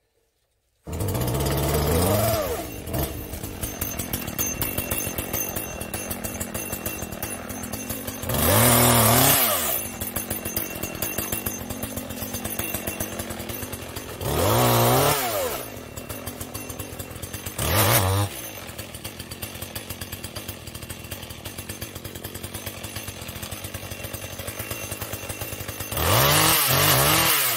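Gasoline engine chainsaw, a Chinese-made Dolmar, comes in abruptly about a second in and idles with a steady pulsing. It is revved up five times in short bursts of a second or two, its pitch climbing with each rev.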